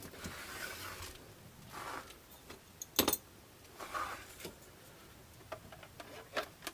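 Hard plastic scale Jeep body being handled and pressed onto an RC crawler chassis: light plastic rustling and clicks, with one sharp click about three seconds in as it snaps into place.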